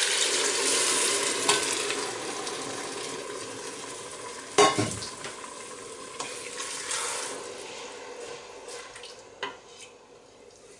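A liquid stock mixture poured onto hot braised onions in a stainless steel pot, sizzling and hissing strongly at first and dying away steadily over several seconds as the pan cools. A single sharp clank about four and a half seconds in, then a wooden spoon stirring with a few light knocks.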